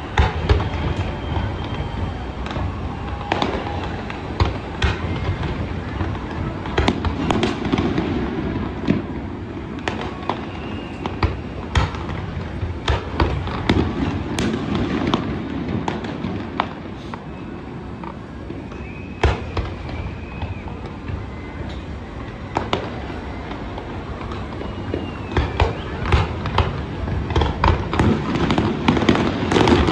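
Fireworks display going off: repeated sharp bangs and crackling bursts, coming thicker near the end.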